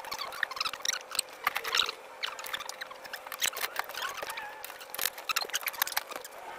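Irregular metal clicks and light clinks of hand tools working on a coilover suspension mount, with a faint steady hum underneath.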